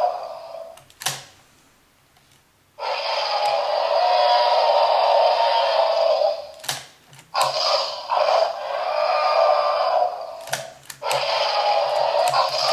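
Recorded T-Rex roars played through the small built-in speaker of a Mattel Thrash 'n Devour T-Rex toy, thin-sounding with no deep bass. They come three times, starting about three seconds in, about seven seconds in, and near the end, each after a click of the tail button as the jaws open.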